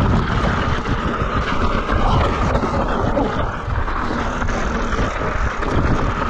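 Mountain bike descending a loose, rocky trail: tyres rolling over loose rock under a steady, noisy low rumble.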